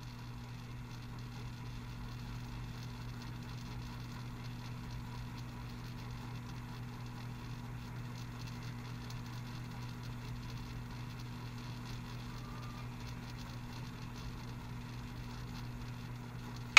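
A steady low hum with faint hiss, unchanging throughout, with no music or voices.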